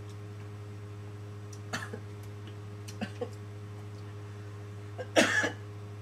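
A man who is ill gives one short, loud cough about five seconds in, after a few faint clicks, over a steady low hum.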